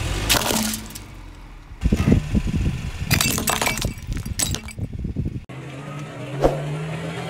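Car tyre rolling over small capped bottles and crushing them, with sharp cracks and crunches about two seconds in and again from about three to almost five seconds in. After a cut, a low steady hum with a single click.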